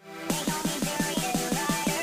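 Electronic music: a quick run of synth notes, about six a second, each dipping slightly in pitch.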